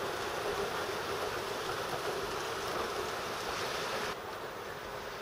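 Steady rain falling hard, an even rushing hiss; about four seconds in it drops abruptly to a quieter hiss.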